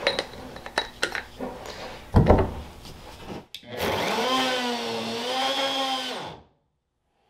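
Clicks and a heavy thump as the parts are set on the polyethylene tank, then, about four seconds in, a router spins up and runs for about two and a half seconds, spinning a plastic tank fitting against the tank to friction spin-weld it in. The motor's pitch sags slightly under the load, falls as it stops, and the sound cuts off suddenly.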